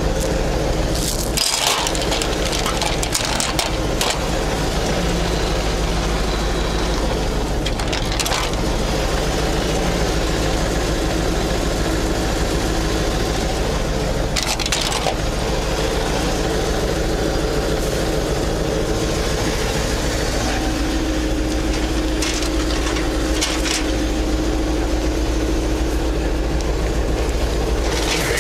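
Scania 143M crane truck's V8 diesel running steadily, with scattered sharp knocks and clicks, a cluster of them in the first few seconds.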